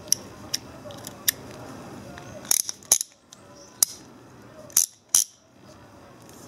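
Sharp metal clicks and clacks from a multi-size ratchet wrench head as its spring-loaded socket is pushed through and turned. There are about eight of them, irregularly spaced, and the loudest come from about two and a half to five seconds in.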